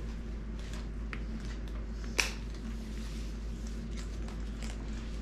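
A handbag and its long fabric strap being handled: faint scattered rustles and ticks, with one sharp click about two seconds in, over a steady low hum.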